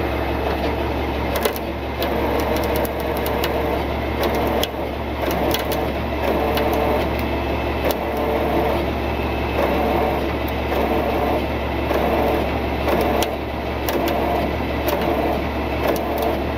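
Tow truck's engine running steadily, powering the winch that is lifting the pickup on its cable, with scattered sharp clicks and ticks throughout.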